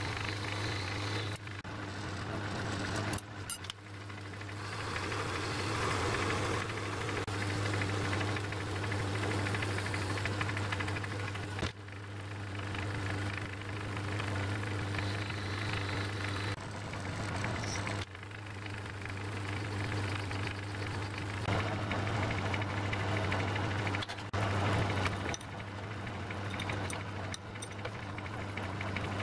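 Metal-turning lathe running, with a steady motor hum under the scraping hiss of a cutting tool taking chips off a small metal part held in the chuck. The sound breaks off and resumes abruptly several times.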